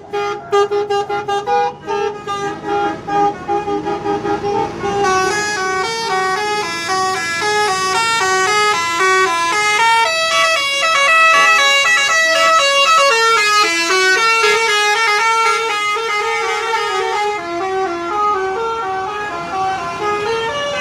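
Bus telolet horn, a multi-tone musical horn, playing a fast melody of stepped notes, choppy at the start. About five seconds in, the tune turns fuller and brighter with higher notes and runs on as a rapid, changing sequence.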